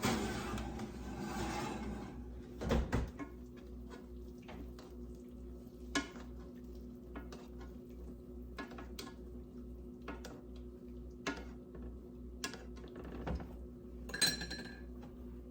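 Scattered clinks, knocks and scrapes of a utensil against a pan and dishes, over a steady low hum.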